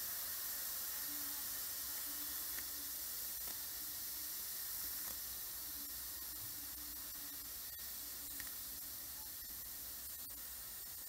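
Steam hissing steadily out of the pressure-release valve of an Emsan clip-on pressure cooker, turned to steam release after cooking. The hiss slowly fades as the pressure inside drops.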